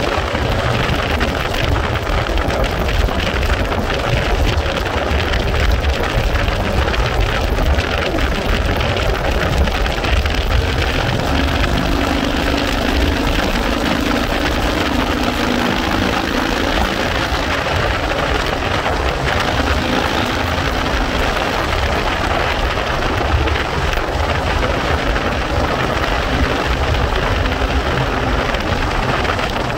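Steady wind rush buffeting the microphone on a moving vehicle at highway speed, over road and engine noise. A low hum stands out for a few seconds about halfway through.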